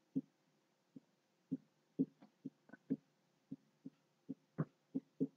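Dry-erase marker writing on a whiteboard: a string of short, soft taps and strokes, about two a second, as words are written.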